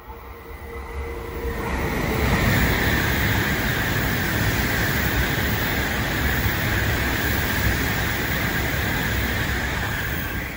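A Tokaido Shinkansen N700-series train passing through the station at speed without stopping. Its rushing wheel-on-rail and air noise builds over the first two seconds, holds steady with a hissing edge, then starts to fall away at the very end.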